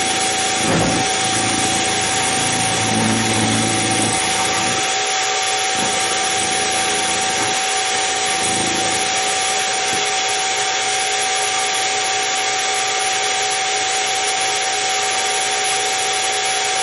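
Harbor Freight mini mill running with a steady whine while its end mill cuts a curved slot in a metal link, the part being turned slowly by hand on the rotary table.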